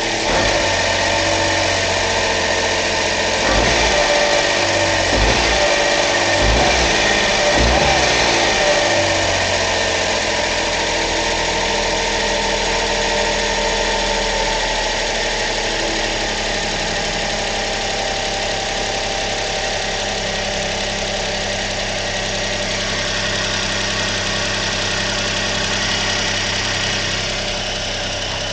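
Suzuki Carry DA63T kei truck's small three-cylinder engine running at idle. About four seconds in, the revs rise and fall several times for a few seconds, then it settles back to a steady idle.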